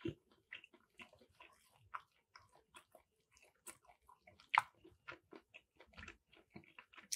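A person biting, tearing and chewing a tough, dry piece of chicken held in the hands, heard close: many small irregular mouth clicks and smacks. The sharpest click comes about four and a half seconds in.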